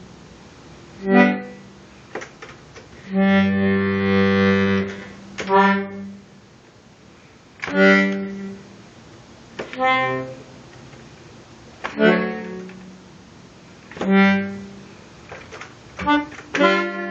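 Button accordion playing short chords spaced about two seconds apart, with quiet gaps between them; one chord is held for nearly two seconds.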